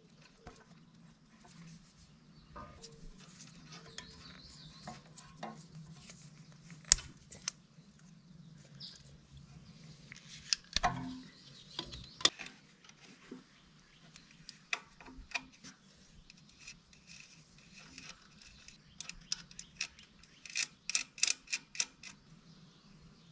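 Small clicks and rubbing of hands working a wire connector onto an alternator's terminals, with one sharp metallic click partway through and a quick run of about half a dozen sharp clicks near the end.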